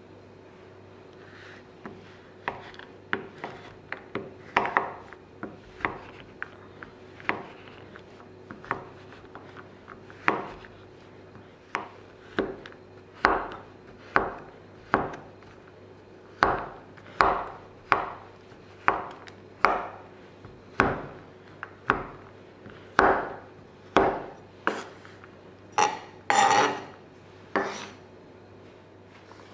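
Repeated sharp knocks of a kitchen utensil, about one a second and uneven in strength, each with a short ring, and a longer, louder knock-and-scrape near the end.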